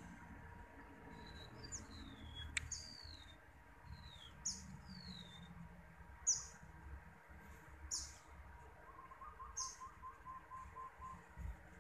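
Birds calling: short, high chirps repeating every second or two, several short falling whistles in the first few seconds, and a quick run of soft lower notes near the end.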